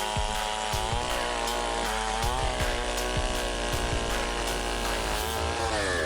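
Chainsaw engine running under load, its pitch rising and falling as it cuts, then dropping away near the end.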